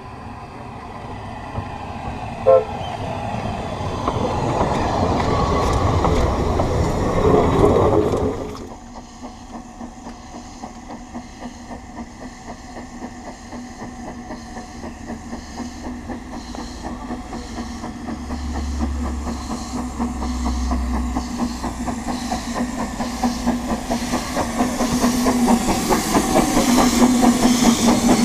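Narrow-gauge Fairlie steam locomotive approaching at low speed, its rhythmic exhaust beats growing louder as it draws near. Before that, a steam locomotive runs toward the microphone, with one brief sharp sound about two and a half seconds in.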